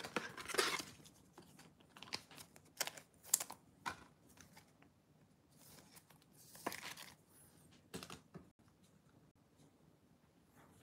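Light plastic clicks and rustles of trading cards being handled and slid into a clear plastic card holder, the loudest rustles about a second in and again near seven seconds in; the sounds stop about eight seconds in.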